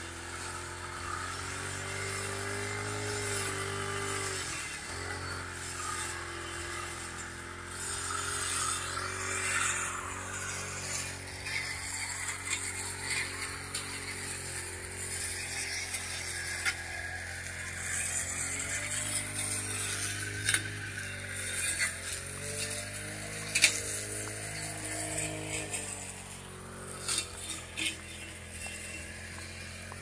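Petrol brush cutter's small engine running steadily while cutting grass, its speed dipping briefly a few times, with occasional sharp clicks.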